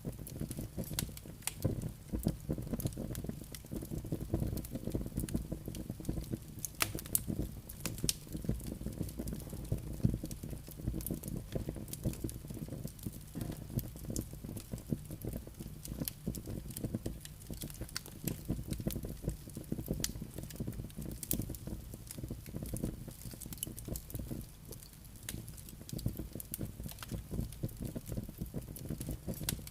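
Wood fire in a fireplace burning steadily, its logs crackling with many irregular snaps and pops over a low rumble of flame.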